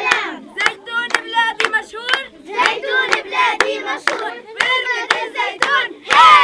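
A group of children chanting a song together in time with steady hand claps, breaking into a loud group shout near the end.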